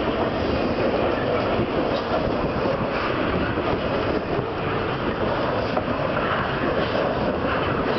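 Intermodal freight train of highway trailers on flatcars passing close by at speed: a steady, unbroken noise of steel wheels rolling on rail.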